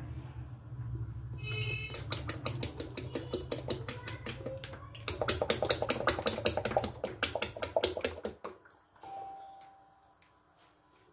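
Cooking oil pouring from a plastic bottle into a wok-like karahi, a run of rapid clicking gurgles and splashes that grow loudest about five seconds in and stop just after eight seconds.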